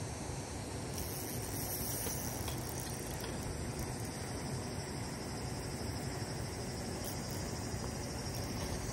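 Insects buzzing steadily at a high pitch, setting in about a second in, over a constant low outdoor rumble.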